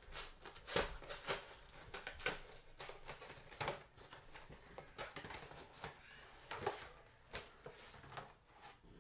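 Cardboard collection box and its packaging being opened by hand: irregular rustling and crackling with sharp snaps, loudest about a second in.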